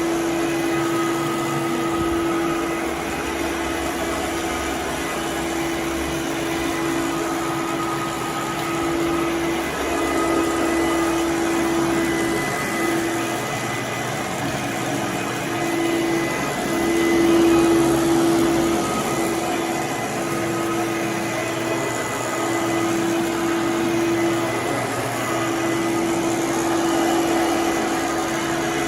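Fantom Domestic 11-amp vacuum cleaner running while vacuuming a room, a steady motor hum and airflow rush whose tone wavers and drops out every few seconds as the loudness rises and falls slightly.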